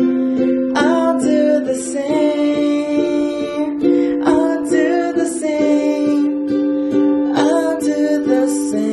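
Cordoba ukulele strummed in steady downstrokes, changing from an F chord to D minor and then to G.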